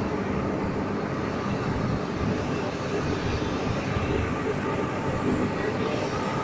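Steady aircraft engine noise, an even continuous rumble at an unchanging level.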